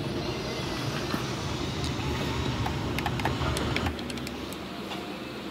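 Television soundtrack at the opening of a film: a steady low rumble with scattered sharp clicks, most of them about three seconds in. The rumble eases off about four seconds in.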